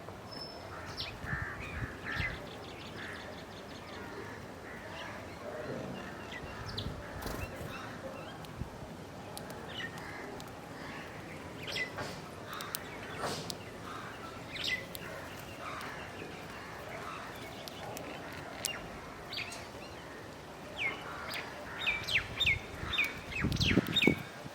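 Several wild birds chirping and calling at intervals, with a quick run of repeated chirps near the end and a few low thumps just before it ends.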